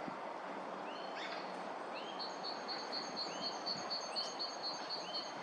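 Wild birds calling over a steady hiss: one bird repeats a short upswept call about once a second, and from about two seconds in another gives a rapid high trill lasting a couple of seconds.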